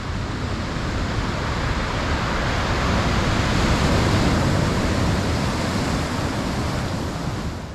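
A steady rushing noise that sounds like surf. It swells to a peak about halfway through and fades out near the end.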